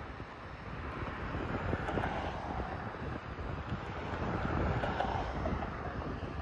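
Wind gusting on the microphone over a steady background rumble of engines from traffic and heavy construction machinery.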